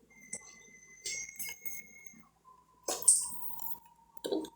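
Small clinks and knocks against a drinking glass while lemon is squeezed into water, with a sharper knock about three seconds in. Faint steady tones sound beneath, a higher one first, then a lower one from about halfway.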